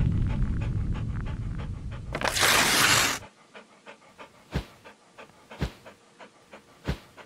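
Logo sound effects. A low rumble fades over the first three seconds, with a loud hissing swoosh about two seconds in. It ends suddenly and gives way to a dog-panting sound effect: short puffs about three a second, a few of them louder.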